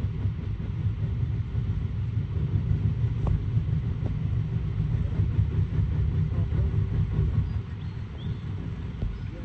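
Low, steady rumble of a river tour boat under way, easing off slightly near the end.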